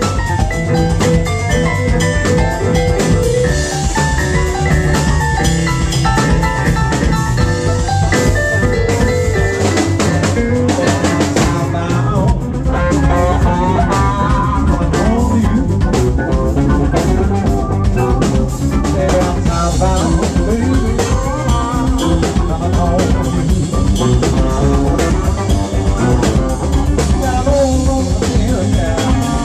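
Live electric blues band playing, with a drum kit, electric guitars and keyboard, all amplified.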